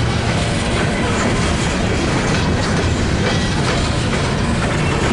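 Empty coal cars of a CSX freight train rolling past at close range: a steady, loud noise of wheels on the rails, with faint clicking as the wheels pass over the rail joints.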